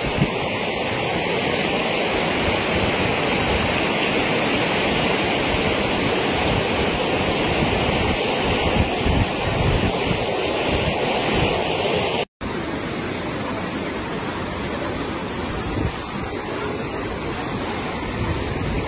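Floodwater rushing past in a fast, steady torrent, heard as a continuous rushing noise. It breaks off for a moment about twelve seconds in, then goes on a little quieter.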